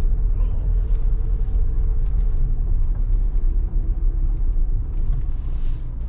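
Car driving, heard from inside the cabin: a steady low rumble of engine and tyre noise.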